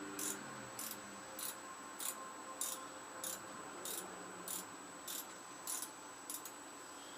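A hand ratchet being worked back and forth on a fastener of a small Tecumseh lawn-mower engine during teardown. Each backswing gives a short raspy click, about eleven evenly spaced strokes a little under two per second, ending with a quick double stroke.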